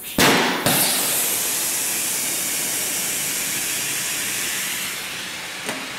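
Oxy-fuel brazing torch being lit: the flame catches with a sudden burst just after the start, then burns with a steady hiss that eases slightly near the end.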